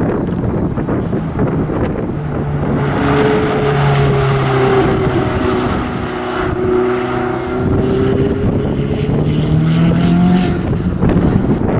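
Ferrari 488 GTB's twin-turbo V8 driven on a handling course, its note rising and falling as it accelerates and lifts, climbing in pitch near the end before cutting off. Wind buffets the microphone throughout.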